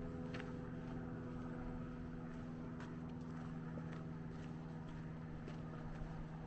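Footsteps on a sandy dirt trail, a few light irregular steps, over a steady low hum.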